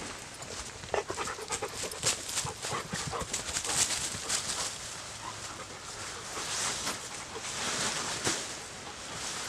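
A dog panting, in repeated quick breaths, with a few sharp clicks or crunches mixed in during the first few seconds.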